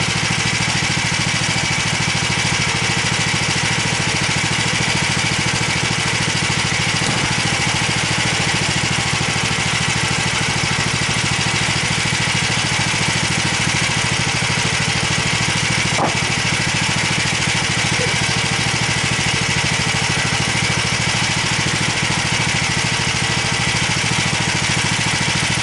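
Homemade band sawmill's engine running steadily, with one sharp click about two-thirds of the way through.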